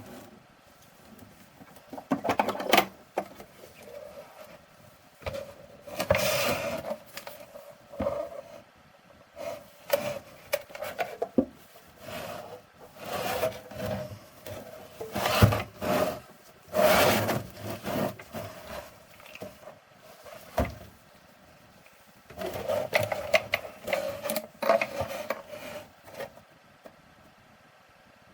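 Irregular scraping and rubbing strokes on the artillery box, each lasting about half a second to a second and a half, with short pauses between and a stop near the end.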